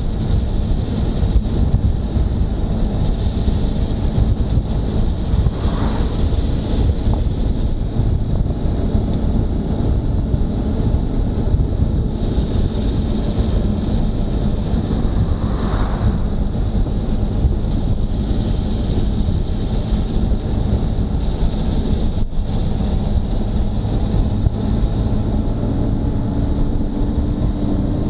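Wind rushing over the microphone of a moving motorcycle, with the engine running steadily underneath; the engine note rises slightly near the end.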